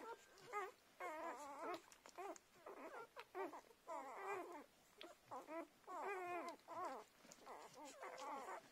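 Five-day-old kelpie puppies nursing, giving a run of short, wavering squeaks and whimpers one after another, about one or two a second.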